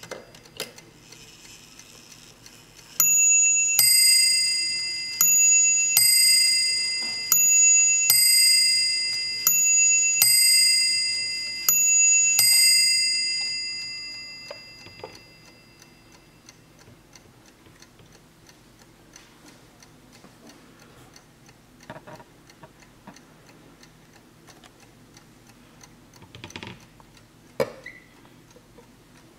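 Warmink (Wuba) mantel clock striking on its two bells: five two-note ding-dong pairs, a high and a low bell, each ringing on and fading out after the last stroke. The movement ticks steadily throughout, and near the end there are a few knocks as the case is handled.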